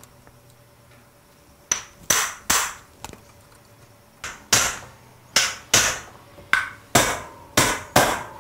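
Hammer striking a Park Tool TNS-1 star nut setter, driving a star nut down into a mountain bike fork's steerer tube until it seats. About a dozen sharp blows, starting a couple of seconds in and mostly coming in quick pairs.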